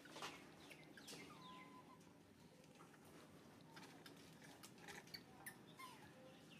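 Faint animal calls: several short, high chirps, each dropping in pitch, scattered through a quiet background with a few light clicks.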